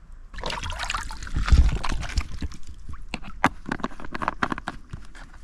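Water gurgling and sloshing as the soft plastic pouch of a squeeze water filter is dipped and filled in a shallow creek, then a run of sharp clicks and crinkles as the pouch and filter are handled.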